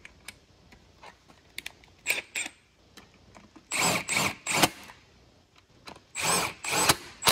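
Oil pump bolts being driven home with a socket on a long extension, in several short bursts with a few single clicks between. The pump is from a 1.8T engine and is being fitted to an Audi ALT 2.0 20-valve alloy block.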